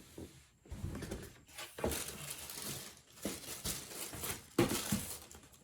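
Paper rustling and crinkling with a few soft knocks as a sneaker is taken out of its cardboard shoebox.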